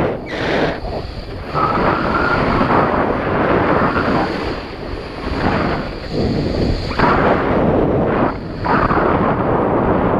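Strong wind buffeting the microphone, surging and easing in gusts every second or two.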